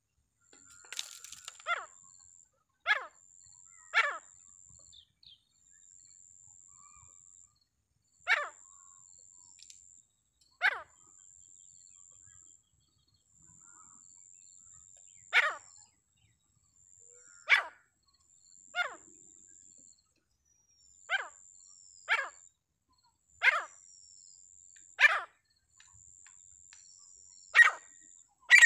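A teetar (partridge) calling: a series of short, sharp single notes, each dropping quickly in pitch, repeated at uneven gaps of one to several seconds.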